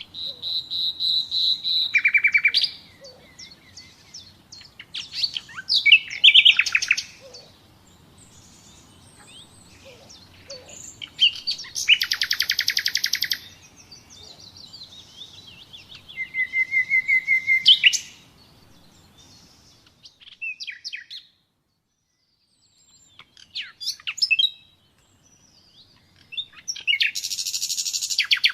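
Common nightingale singing: about six short, varied phrases with pauses between them, each built of rapid repeated notes, pure whistles and fast trills, some swelling louder toward the end of the phrase.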